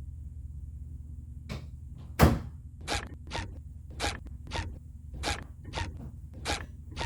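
A loud knock, then a run of sharp clicks or thuds about two a second, over a low steady hum.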